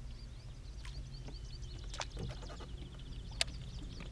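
Birds chirping, with a fast trill about two to three seconds in, over a steady low hum. A few sharp clicks come through; the loudest is about three and a half seconds in.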